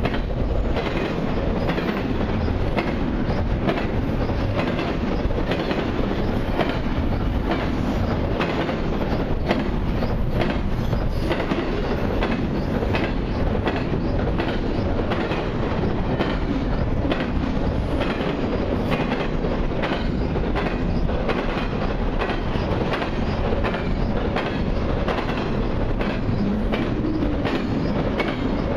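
Double-stack intermodal container cars rolling past close by: a steady rumble of steel wheels on rail, with frequent clicking as wheels pass over rail joints.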